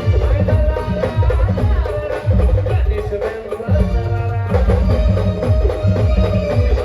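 A live village band playing instrumental music: heavy drum beats under a melodic lead. The drums drop away briefly around three seconds in, then come back.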